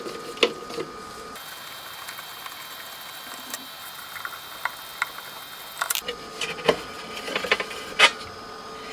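Hex-key screwdriver working the cap-head screws on an aluminium equipment case: scattered small metallic clicks and taps, with one louder knock near the end as the lid comes off.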